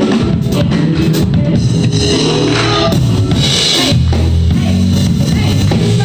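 Live band playing: drum kit and guitars together, with the low end growing heavier about four seconds in.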